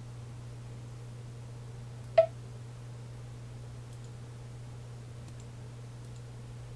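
A single sharp computer mouse click about two seconds in, followed by a few much fainter clicks, over a steady low electrical hum.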